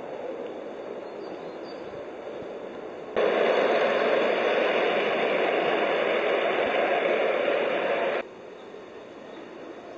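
Ride-on 5-inch gauge garden railway train running past, a steady rumble of its wheels on the rails. It starts abruptly about three seconds in and cuts off about eight seconds in, with fainter steady noise before and after.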